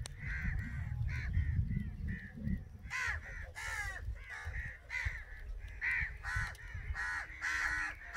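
Crows cawing over and over, several birds calling in quick succession, a few caws a second. A low rumble sits under the calls for the first two and a half seconds.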